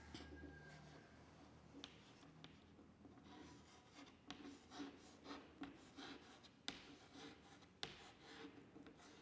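Faint scratching of a pen writing on paper in short, irregular strokes, busiest in the second half.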